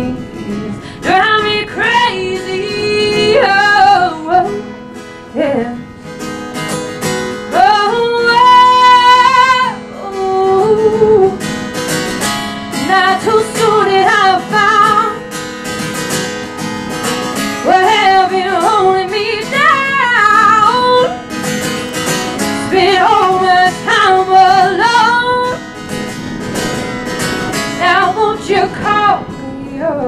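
A woman singing a folk song to her own acoustic guitar accompaniment, the sung lines bending up and down with short breaks between phrases and one long held note about eight seconds in.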